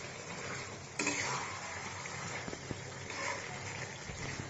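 Chicken gravy sizzling in a pan over a gas flame that has been turned up, a steady frying hiss with a sharper burst about a second in.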